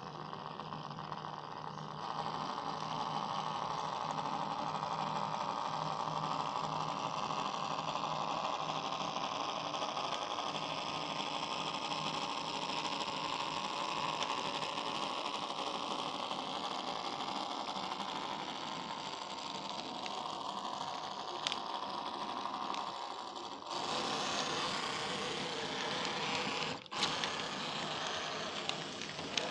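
HO-scale model freight train running past on the layout's track: a steady whirring running noise of the small locomotive motor and wheels on the rails. Near the end it turns brighter and hissier.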